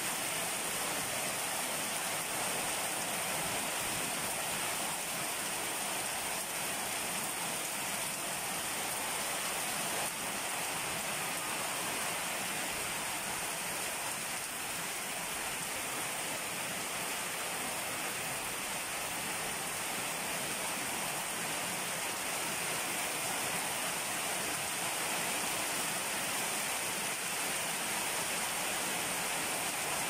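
Heavy rain falling steadily on a wet paved yard and garden foliage, an even continuous wash of drops splashing.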